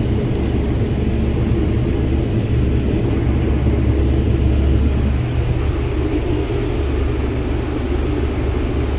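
Case IH combine harvester running steadily while cutting and threshing wheat: a loud, even, low engine drone.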